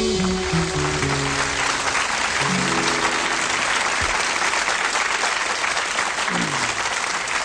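The end of a live music track: a few low notes stepping downward as audience applause breaks out and carries on.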